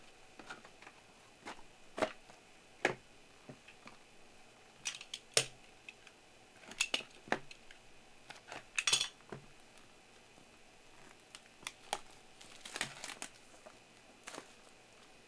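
Plastic shrink-wrap on a trading-card box being slit with a blade and peeled off, in short crinkles and tears, with scattered taps and clicks from the box being handled.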